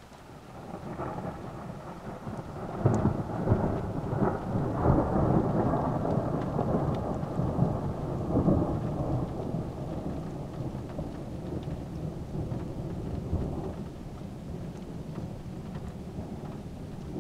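Low rumbling noise that builds about a second in, is loudest with several sharp swells between about three and nine seconds, then slowly eases off.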